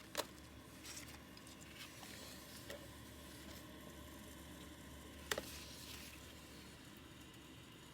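Faint, steady running noise of a small ultrasonic cool-mist humidifier, with two sharp clicks, one just after the start and one about five seconds in.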